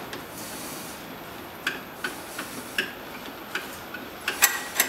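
Light, scattered clicks and taps as gloved hands work loose fittings and hoses on a snowmobile engine, with a quick run of clicks near the end.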